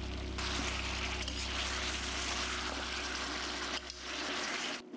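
Mutton pieces sizzling while they fry in a hot steel pan: a steady hiss that starts about half a second in and stops abruptly just before the end. Beneath it, a low held note of background music fades out.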